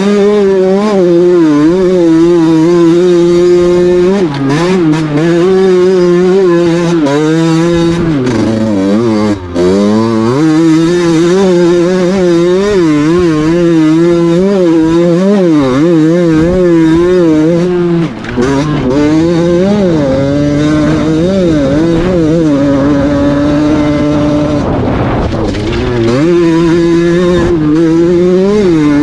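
KTM motorcycle engine with a trofeo exhaust line, revved hard, its pitch wobbling up and down with the throttle. About a third of the way in, the revs fall low and then climb back up.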